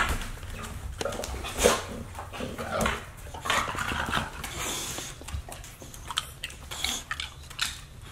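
A bulldog and a small dog sniffing and snuffling at close range in short breathy bursts, with light clicks of claws on a tile floor near the end.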